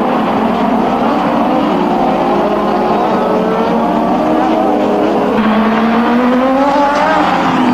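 Formula One race cars' engines on track, several at once, their notes rising and falling through the gears.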